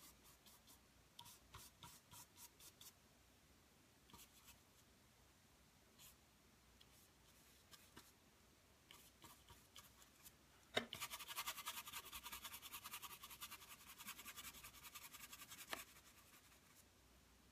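Faint scratches of a paintbrush working oil paint on canvas: scattered short strokes, then after a knock a little past the middle, about five seconds of fast back-and-forth scrubbing that stops abruptly.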